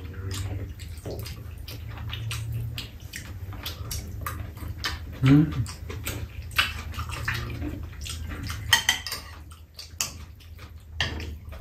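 Two people eating: metal spoons and chopsticks click and scrape against ceramic bowls, with wet chewing and slurping. A short hummed vocal sound, rising in pitch, comes about five seconds in and is the loudest moment.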